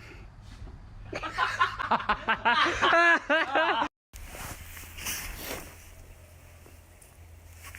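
A person laughing hard in quick rising-and-falling bursts, cut off abruptly about four seconds in. A quieter stretch with a steady low hum follows.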